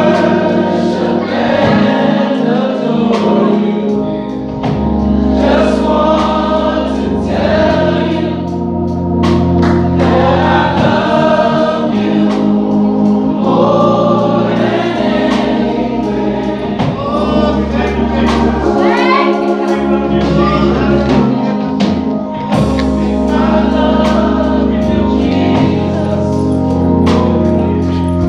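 Live gospel worship music: voices singing together over organ, bass and drums.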